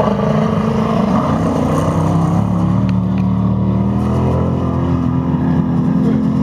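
Off-road racing buggy engines running hard on a dirt autocross track, a steady engine drone whose pitch climbs partway through as a buggy accelerates.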